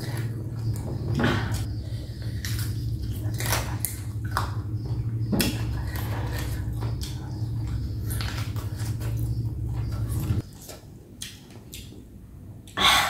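Close-miked chewing of pickled boneless chicken feet: wet crunching and clicking, which stops about ten seconds in, then a brief loud rustle near the end.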